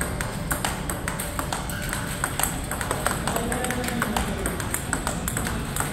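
Table tennis rally: a plastic ball clicking off a rubber-faced paddle and the table in quick, regular succession, with faint background music.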